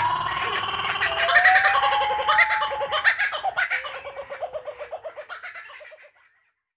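Jungle animal call sound effects: rising calls and quick chattering that fade out and stop about six seconds in.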